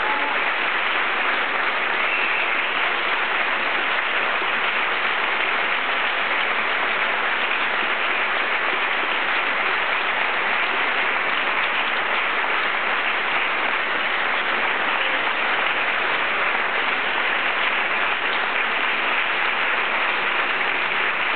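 Crowd applauding steadily, a dense, even clapping that holds at one level throughout.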